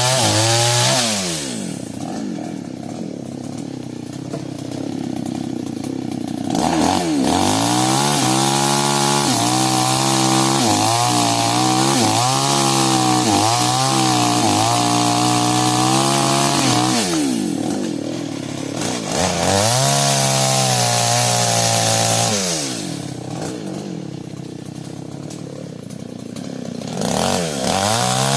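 Two-stroke New West chainsaw cutting sengon wood. It runs at full throttle with the pitch dipping and wavering under load, drops back to idle three times between cuts, and revs up again each time.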